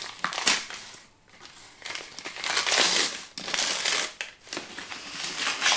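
Gift wrapping paper crinkling and rustling in several bursts as a small wrapped package is opened by hand.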